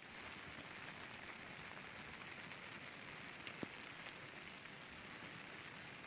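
Steady rain falling, a faint even hiss with a few scattered drop ticks and one sharper tick about three and a half seconds in.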